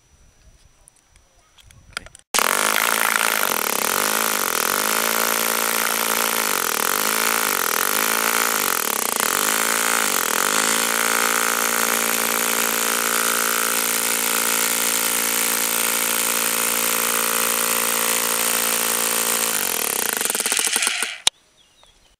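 Corded Kango-type breaker hammer running, its bit hammering on a wooden block laid on a plywood board over wet concrete moulds to vibrate air bubbles and fines out of the mix. It starts abruptly a couple of seconds in, runs loud and steady with a wavering pitch over the first several seconds, and stops near the end.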